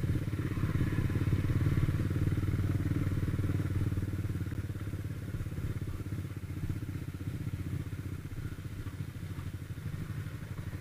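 Motorcycle engine running steadily at low speed, with a rapid low pulsing from its firing. It becomes quieter in the second half.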